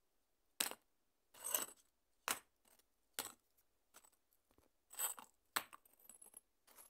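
Stones clacking and clattering against each other: about seven separate sharp hits roughly a second apart, some single clicks and some short rattles.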